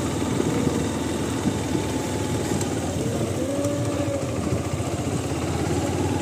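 Motorcycle engine running close by, a steady low rumble.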